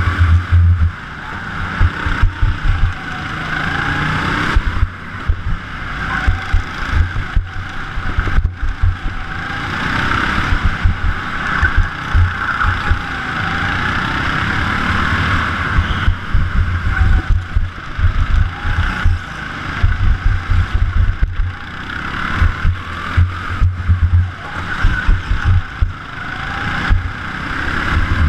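Go-kart motor heard onboard at race pace, its pitch rising and falling as the kart speeds up on the straights and slows for the corners. Low buffeting rumble from wind and vibration on the microphone comes and goes over it.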